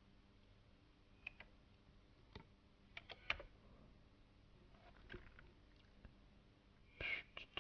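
Scattered clicks and taps of a computer mouse and keyboard while pixels are edited, a few at a time, with a quick run of clicks near the end.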